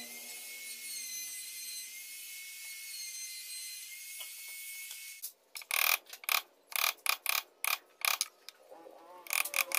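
A small power tool's motor runs with a steady high whine, then stops about five seconds in. A string of short, irregular rasping strokes follows.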